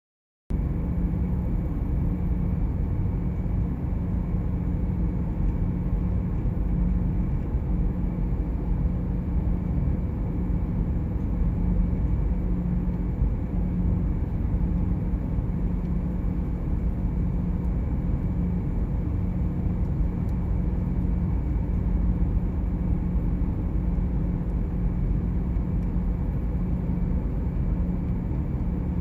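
Steady low drone of a ferry's engines and hull vibration heard inside a passenger cabin, with a constant low hum.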